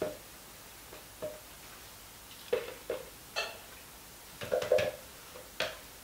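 Light, irregular knocks and taps of a utensil against a plastic jug, some in quick pairs, the loudest cluster near the end, as thick, accelerated cold-process soap batter is knocked off onto the tops of the loaves.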